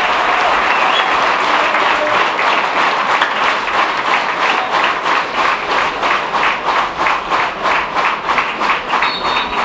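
Football crowd in the stands applauding, the clapping settling into a steady rhythm of about two to three claps a second from about halfway through.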